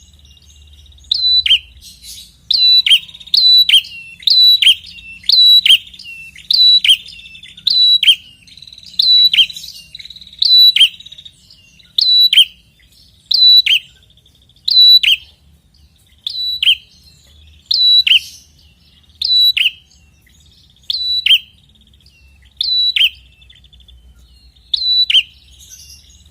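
A red-headed prenjak calls over and over, about once a second: each call is a sharp high note that drops steeply, some given twice in quick succession, with a faint rapid trill between some of the calls. This is a lure recording, used to draw in or provoke other prenjak.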